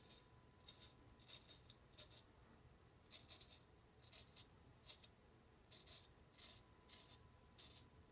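Straight razor scraping through lathered stubble in short, faint rasping strokes, one or two a second.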